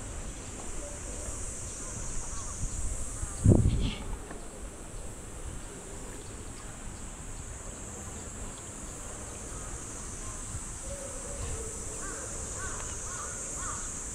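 Insects droning steadily at a high pitch, with a single low thump about three and a half seconds in and a few faint short calls near the end.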